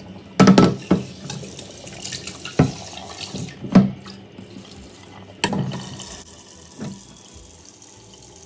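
Boiled rice and its hot water pouring from a pot into a plastic strainer in a stainless steel sink, with the tap running, then water filling the empty pot. About six sharp knocks of the pot against the sink and strainer punctuate the splashing.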